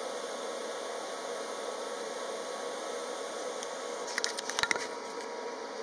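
Steady hiss of DC TIG welding on thin stainless sheet at 48 amps, from a Jasic TIG 200P welder, with a short cluster of clicks and knocks about four seconds in, after the arc has gone out.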